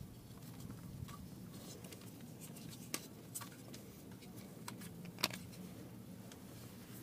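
Faint handling noise: light clicks and ticks as a car door speaker, its plastic spacer ring and speaker wires are handled, with sharper clicks about three seconds in and about five seconds in.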